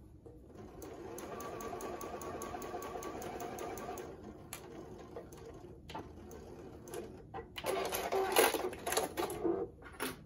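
Juki sewing machine stitching a seam through flannel, running steadily with a fine even ticking for a few seconds from about half a second in, then quieter. Near the end comes a burst of loud rustling and clicks as the sewn fabric is handled and pulled from the machine.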